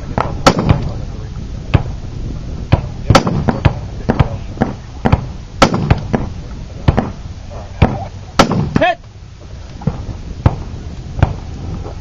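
A string of gunshots fired in quick succession, roughly one every half second to a second, with uneven loudness, some shots much louder than the rest.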